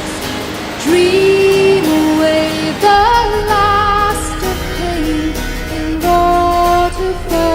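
Background music: a song with a female singer over guitar and bass.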